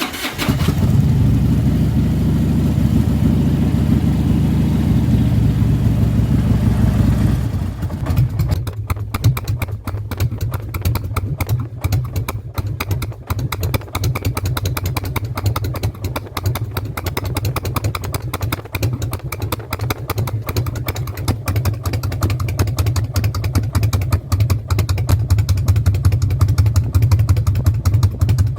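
Harley-Davidson Road King's air-cooled V-twin just started, running at a higher fast idle for about the first seven seconds, then dropping to a lower, uneven, loping idle.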